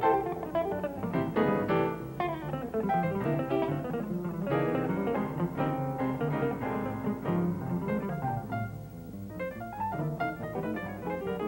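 Jazz instrumental: an archtop electric guitar picks quick single-note lines over double bass, and piano comes in toward the end.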